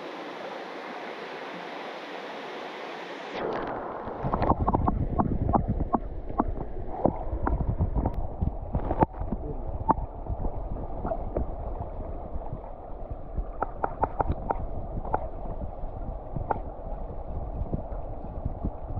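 Running stream water. About three seconds in, the sound turns muffled and deep as the action camera goes under the surface: an underwater rumble of the current, with many scattered sharp clicks and knocks.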